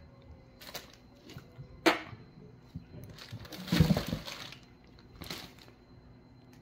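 Wet trout handled in a stainless steel sink: scattered knocks and slaps of fish against the metal and each other, the sharpest about two seconds in, and a longer wet sliding, shuffling sound about four seconds in.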